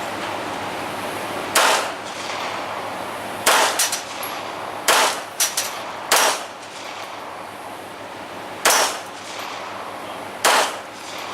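Gunshots: about six shots at irregular intervals a second or two apart, each a sharp crack with a short echo, and fainter sharp cracks just after the second and third shots.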